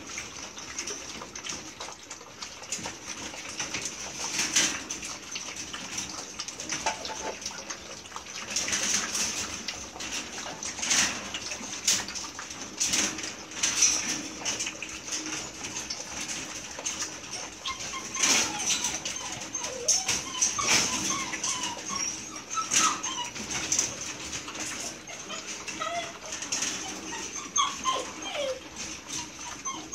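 A litter of six-week-old Belgian Malinois puppies lapping milk from a steel bowl: a busy run of quick wet laps and clicks of tongues and muzzles against the bowl. Brief puppy whimpers come in now and then, more often in the second half.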